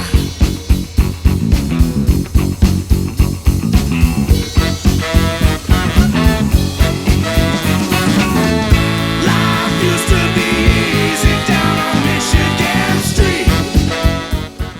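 Upbeat music with guitar over a steady, driving beat, fading down near the end.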